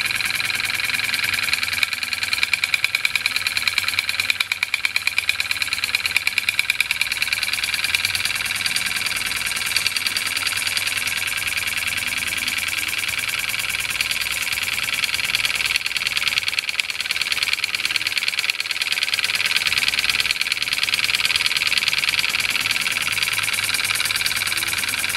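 Cyldon 13-3 model steam engine running under steam, its exhaust beats coming in a fast, even stream over a steady hiss.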